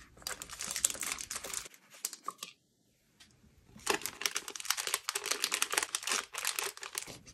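Clear plastic packaging sleeve crinkling as it is handled and lifted, in two spells of dense crackling with a short silent break a little before the middle.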